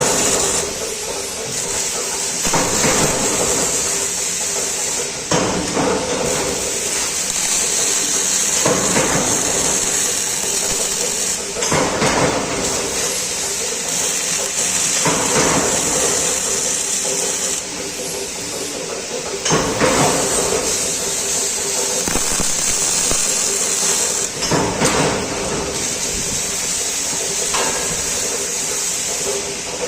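MIG welding: the wire-feed arc crackling and hissing steadily, with a steady hum under it and brief louder surges every few seconds.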